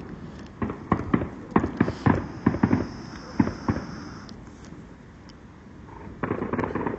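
Distant fireworks going off: a run of sharp bangs and crackles, easing briefly, then a dense burst of rapid crackling near the end.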